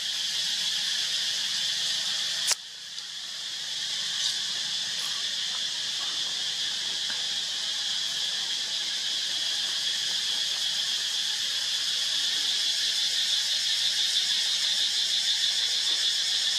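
A steady, high-pitched drone of insects, growing slightly louder and pulsing faster near the end. A single sharp click about two and a half seconds in.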